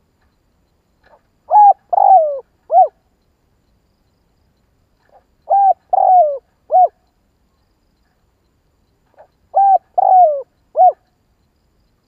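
Spotted dove cooing: three phrases about four seconds apart, each a short coo, a longer coo that falls in pitch, and a short closing coo.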